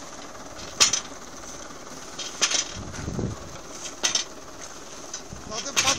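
Metal mechanism of a tractor-drawn field machine clanking at a regular pace, four sharp clanks about a second and a half apart, with a dull thud between the second and third.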